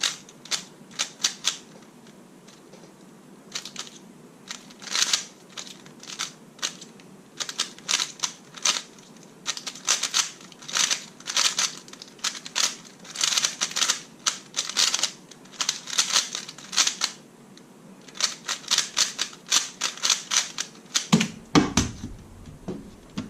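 A Rubik's/Gan Speed Cube, a non-magnetic 3x3 speed cube, being turned fast in a speedsolve: rapid runs of plastic clicks and clacks with short pauses between them. A few duller thuds come near the end.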